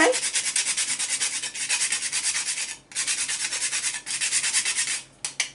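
A whole nutmeg being grated on a small handheld grater: fast, even scraping strokes, several a second, with a short break about three seconds in and a few slower strokes at the end.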